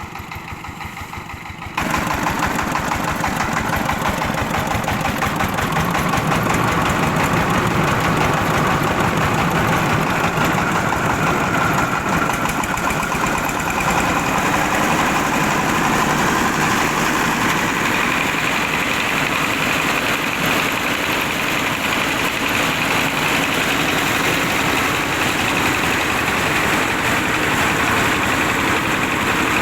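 Old car engine driving a home-built rice milling machine. About two seconds in, the sound jumps suddenly much louder and noisier, then runs steadily.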